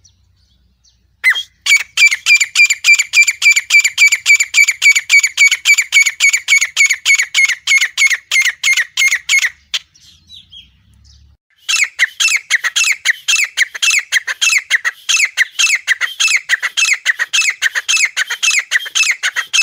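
Grey francolin (desi teetar) calling: a fast run of sharp, evenly repeated notes, about four a second, that breaks off near the middle and starts again about two seconds later, the later notes each dropping in pitch.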